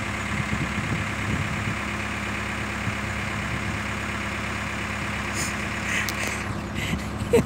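Diesel engine idling steadily, with a few light clicks near the end.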